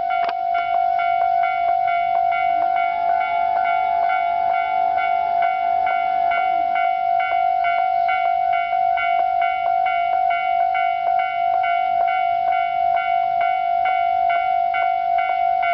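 Electronic bell of a Japanese railway level crossing ringing its standard warning tone, about three dings a second: the crossing is closed for an approaching train. A second, slightly higher tone joins between about three and seven seconds in.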